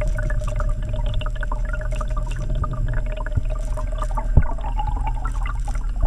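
Water heard through an underwater action camera's housing: a steady rush with a heavy low rumble, a constant hum, and scattered crackles and clicks. There is one sharper thump about four seconds in.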